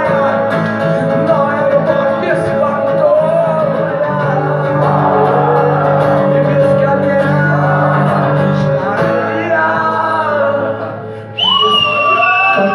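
A live band plays out the end of a song, with a male voice singing over sustained chords; the music fades about eleven seconds in. The audience then bursts into cheering, with loud shrill whistles and shouts.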